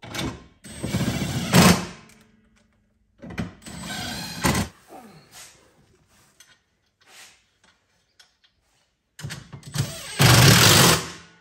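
Cordless power driver running in short bursts as it drives screws into the seat base: three runs of about one to two seconds, one near the start, one a few seconds in, and one near the end. Quieter knocks of plastic panels being handled come in between.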